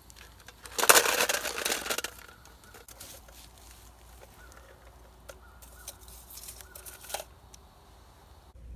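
Corroded lead sinkers poured from a bottle into a metal can, a loud clattering rush lasting about a second, followed by a few light clinks as the can is gripped with pliers.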